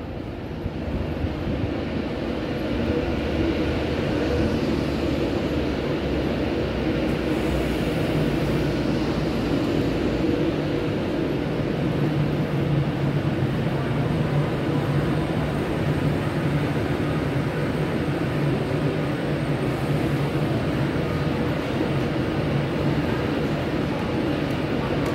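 Avanti West Coast Class 390 Pendolino electric train running slowly into the platform and drawing to a stand, a steady rumble. A steady low hum sets in about halfway through.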